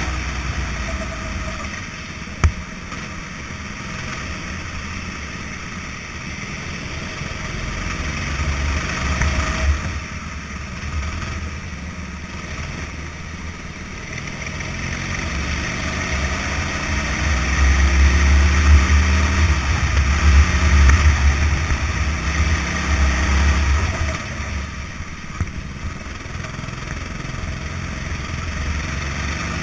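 Go-kart engine running flat out and backing off with the throttle, heard from the driver's helmet camera with wind rush. It climbs in pitch and is loudest about two-thirds of the way through. A single sharp knock about two and a half seconds in.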